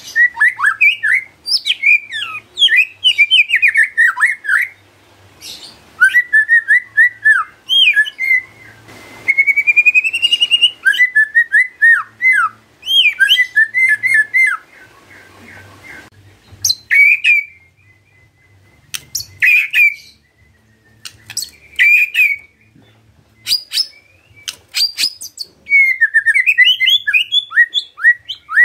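White-rumped shama (murai batu) singing its varied song: rapid runs of sharp, quick notes and whistles, with a long rising whistle about ten seconds in. The middle of the stretch thins out to short sharp calls a second or two apart, then a fast run of notes starts again near the end.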